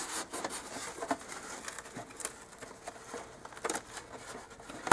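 Fingers rubbing and pressing adhesive tape wire down onto foam-core board: a soft rubbing with scattered light ticks and taps.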